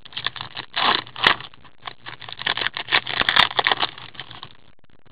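A 2014-15 O-Pee-Chee hockey card pack being torn open and its wrapper crinkled as the cards are pulled out: a run of quick, irregular rustles and crinkles that stops shortly before the end.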